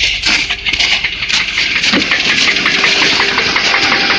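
Land Rover Discovery engine idling with a rapid, even ticking knock, which the owner puts down to an exhaust manifold leak.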